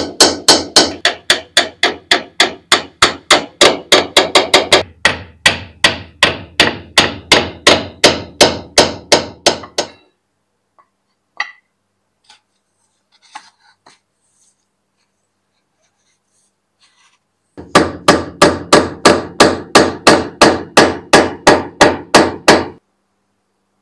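Small hammer tapping a metal pin set into a wooden axe handle, in quick even blows of about three a second. The blows stop about ten seconds in, leaving a few faint handling clicks, and start again at the same pace near the end.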